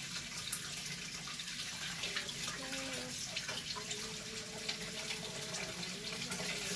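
Kitchen tap running steadily into a sink, with a sharp click about half a second in.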